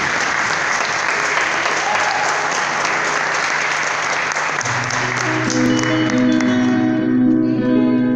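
Audience applause that fades out, while an acoustic guitar played through the hall's PA comes in about halfway through with sustained notes.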